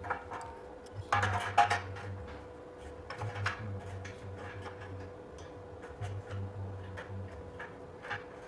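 Steel jig plates and a threaded rod clinking and tapping against galvanized square steel tubing as they are handled and fitted, with a cluster of sharp metal clinks about a second in and scattered lighter taps after.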